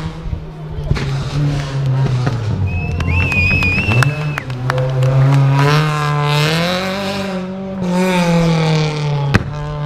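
Rally car engine revving hard, its pitch climbing and dropping back again and again as it shifts through the gears. A short wavering high squeal about three seconds in, and a single sharp crack near the end.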